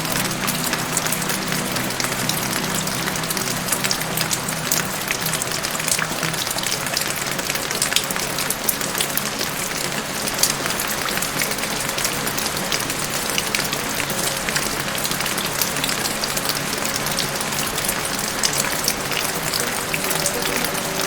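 Steady rain, a dense even hiss full of sharp individual drop hits, under a soft sustained music pad that fades out early and comes back near the end.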